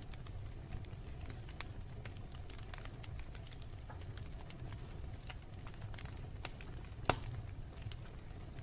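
Wood fire burning in a fireplace: a steady low rumble with scattered small pops and crackles, and one louder pop about seven seconds in.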